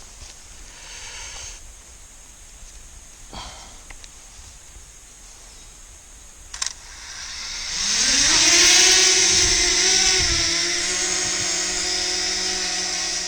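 Small quadcopter drone's electric motors spinning up for take-off: a whine rising in pitch about seven seconds in, then a loud steady propeller hum.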